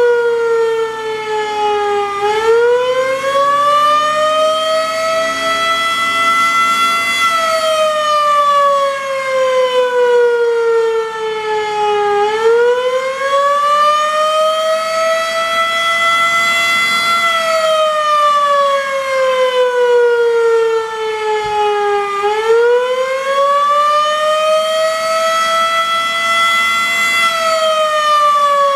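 Federal Enterprises Model 5 civil-defense siren sounding the Attack signal, a loud wail. Its pitch climbs over a few seconds, holds briefly at the top, then slides back down, repeating about every ten seconds.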